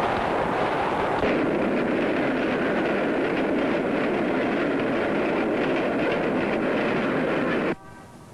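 New York subway train running at speed: a steady, loud rattle and rumble of wheels on the track. It cuts off abruptly near the end, and faint music begins.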